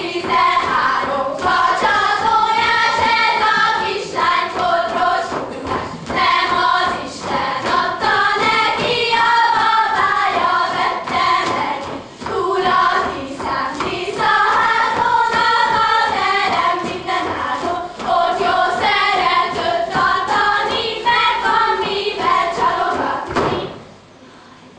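Young girls singing a Hungarian folk song together in a circle dance, their shoes stepping and stamping on the stage boards; the singing stops near the end.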